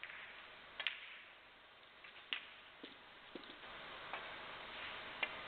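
Snooker balls clicking during play: sharp, separate clicks of the cue tip on the cue ball and of ball striking ball, five or six in all, with a couple of duller knocks among them.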